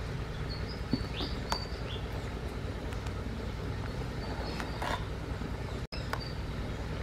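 A metal ladle stirring a pot of lotus-seed dessert, clinking against the metal pot a few times over a steady low rumble. Birds chirp faintly.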